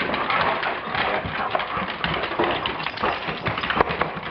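Dogs scrabbling and moving about, with many quick clicks and scuffles, typical of paws and claws on a hard floor.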